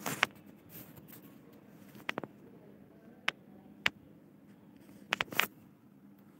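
Phone being handled close to its microphone: scattered sharp clicks and knocks, a cluster near the start, a few single ones through the middle and a quick run of several about five seconds in, over a faint steady hum.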